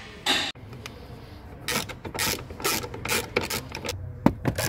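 Ratchet wrench with a T50 Torx bit clicking in repeated strokes as a seat bolt is undone.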